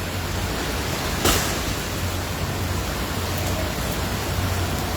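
Heavy rain pouring down in a steady hiss, with a low rumble beneath it. A single short knock sounds about a second in.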